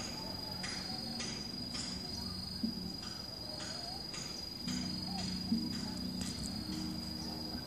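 Insects chirping: a steady high trill with short chirps about twice a second. Under them runs a low hum that grows louder about two thirds of the way in.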